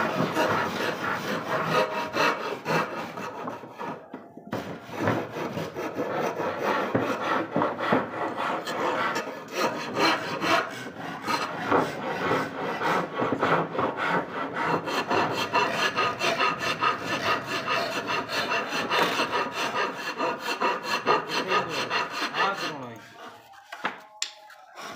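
A hand tool working mahogany with quick, rhythmic rasping strokes, like sawing. The strokes pause briefly about four seconds in and die away near the end.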